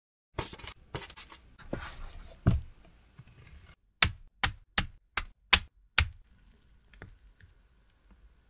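Gloved hands handle thin cookie-dough discs over a metal baking tray with scattered light taps and rustles. About four seconds in, a fluted round plastic cutter is stamped onto the parchment-lined metal tray six times in quick, even succession, marking circles for piping choux dough: the loudest sound here, a string of sharp taps.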